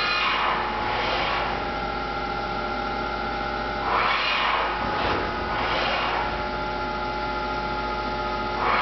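Haas VF-11 CNC vertical machining center running under power: a steady machine hum with several held tones, and a rush of noise that swells and fades about four times.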